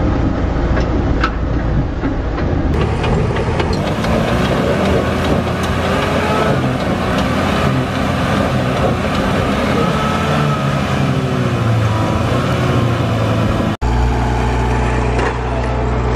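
Suzuki Vitara 4x4's engine running under load as it crawls up a steep dirt slope, its pitch wavering, with scattered clicks. After a cut near the end, a steadier low engine hum.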